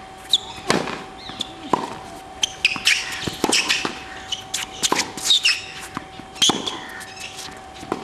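Tennis racket strikes and ball bounces of a serve and the rally that follows on an outdoor hard court: a string of sharp pops every second or so, with birds chirping in the background.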